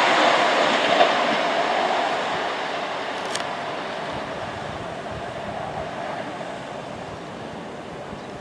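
A train passing and moving away, its rumble and wheel noise fading steadily, with a single click about a second in.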